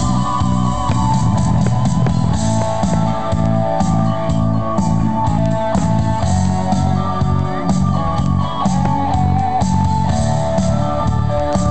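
Background music: a song with held notes over a steady beat.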